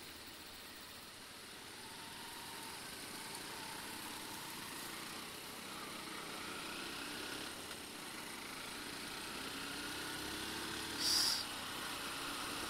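Motorcycle engine and road noise, faint, rising in pitch several times as the bike accelerates through the gears. A brief hiss comes about eleven seconds in.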